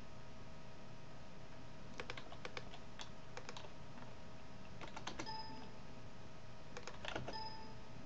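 Computer keyboard and mouse clicking in small scattered clusters, about two seconds in, around five seconds and around seven seconds, over a faint steady hum.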